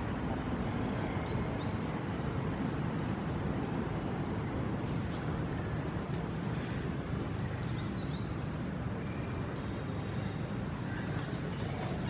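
Steady low outdoor rumble, with a few faint high chirps about a second and a half in and again about eight seconds in.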